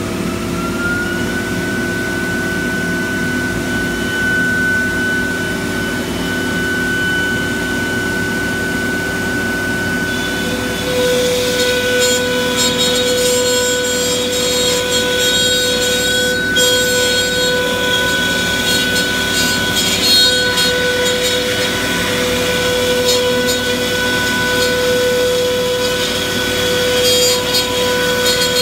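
Techno HD CNC router's spindle whining as it finishes spinning up, a rising tone that levels off about a second in, over the steady hum of the vacuum hold-down pump. About ten seconds in the router bit starts cutting the plywood sheet, adding a rough, uneven cutting noise on top of the steady spindle whine.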